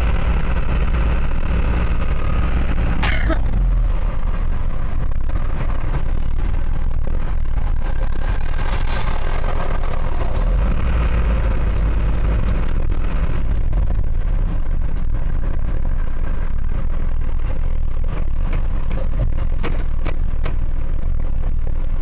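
Steady low engine and road rumble inside a moving vehicle's cab at highway speed, with a sharp click about three seconds in and another about thirteen seconds in.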